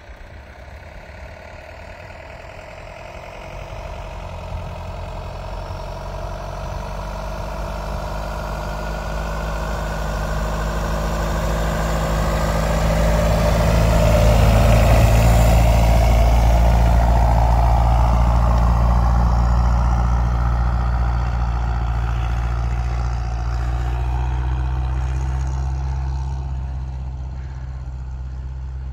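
Tucker Sno-Cat's engine running as the tracked snow vehicle drives past through deep snow. It grows louder as it approaches, is loudest about halfway through as it passes close, then fades as it moves away.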